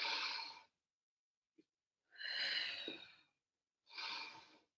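A woman breathing audibly while she exercises. There are three separate breaths, each under a second or so, with silence between them.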